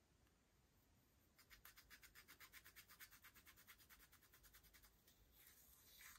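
Faint scratching of a metal-tipped tool digging into a pan of pressed eyeshadow, breaking up the powder in quick, even strokes for a few seconds, then a smoother scrape near the end.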